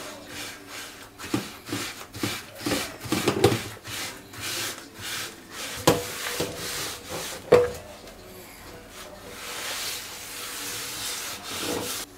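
Rubber-gloved hands rubbing a gritty cleaning paste over a metal frying pan in repeated strokes, with two sharp knocks of the pan that ring briefly, then a steadier stretch of rubbing.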